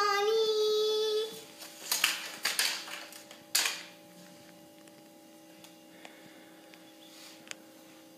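A young girl's singing voice holds the last note of the song for about a second, then three short bursts of rustling or breathy noise follow. After that only a faint steady hum remains.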